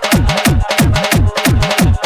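Loud electronic DJ remix music driven by a pounding kick drum, each beat dropping in pitch, about three beats a second.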